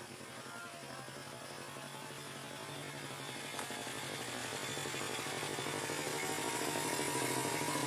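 A steady motor drone with a low, even pitch, growing slowly louder throughout.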